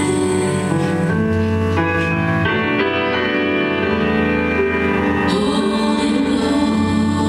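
Slow music with long held notes, played over a theatre's sound system and picked up from the audience seats.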